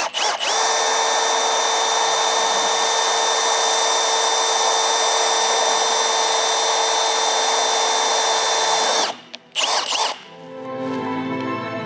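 Cordless drill running at a steady, constant-pitch whine for about nine seconds while drilling a rivet hole through the sheet metal beside the windscreen. It stops with a short final burst, and background music comes in near the end.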